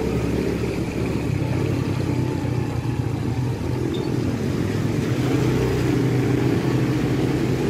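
A small motorcycle engine running steadily while riding, its pitch wavering slightly, over a constant hiss of wind and wet road.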